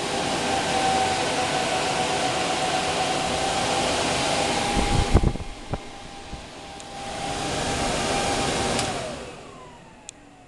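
The spray booth's 120 mm server fans running with a steady whine and a loud rush of air from the exhaust, which dips partway through and comes back. Near the end the fans are switched off and wind down, their whine falling steadily in pitch.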